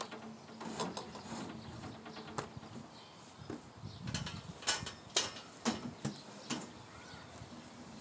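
Scattered knocks and clanks from a side-by-side refrigerator being tilted back onto a metal two-wheel hand truck, thickest in a cluster about four to six seconds in.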